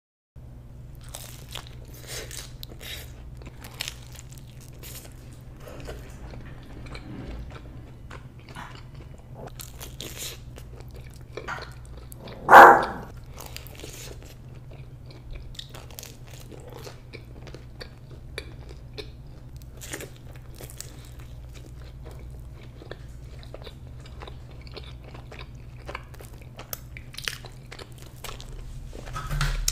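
Close-miked eating: crunchy bites and chewing with many small crackles over a steady low hum, and one much louder sharp sound about halfway through.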